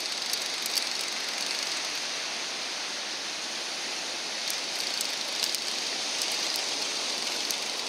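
Steady hiss of ocean surf washing on the beach, with a few faint, sharp clicks scattered through it.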